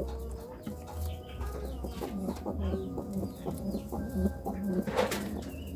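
Domestic pigeons cooing in courtship, a run of repeated low coos about a second apart, with some higher bird chirps and a sharp click about five seconds in.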